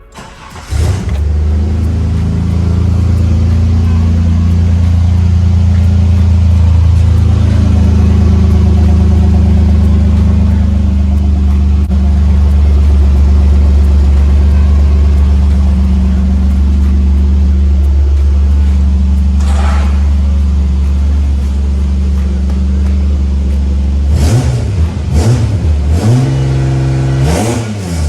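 Holden Commodore wagon engine running through a swapped-on Commodore Ute exhaust. It idles steadily, then is revved in several quick blips near the end, with the pitch rising and falling each time.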